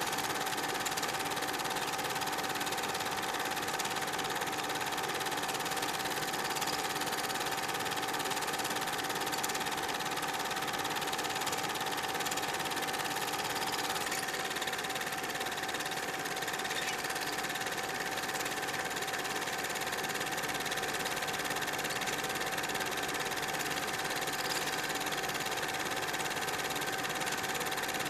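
Super 8 film projector running: a steady mechanical whir with a constant tone in it, which shifts slightly about fourteen seconds in.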